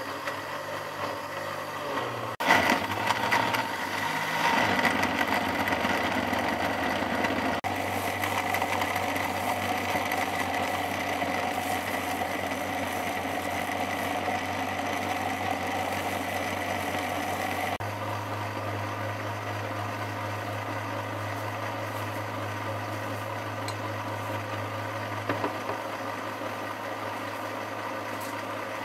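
Countertop electric blender running, puréeing red chili peppers and garlic into a runny red sauce. The motor noise jumps louder suddenly about two seconds in, then settles into a steady whir.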